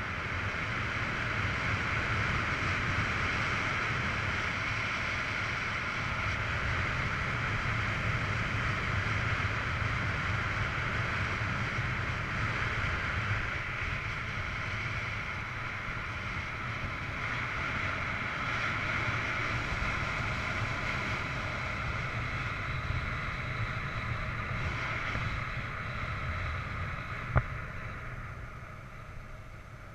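Wind rushing over the camera microphone of a paraglider in flight, a steady rush with a low rumble that eases off near the end. A single sharp click sounds a few seconds before the end.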